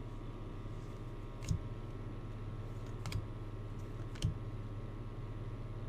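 Three short, sharp clicks, a second or so apart, over a steady low electrical hum.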